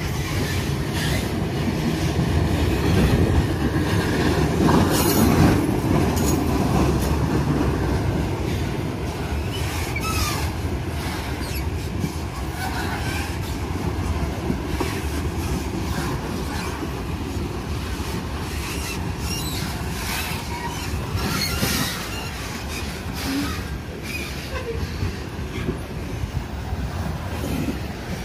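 Loaded freight train's wagons rolling past on a climbing grade: a steady low rumble of wheels on rail, loudest about five seconds in, with clacking and brief wheel squeals now and then.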